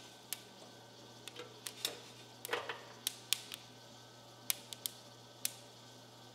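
Freshly roasted coffee beans in a roaster's cooling tray crackling, giving a dozen or so scattered, irregular sharp pops as they cool and are stirred, over a low steady hum.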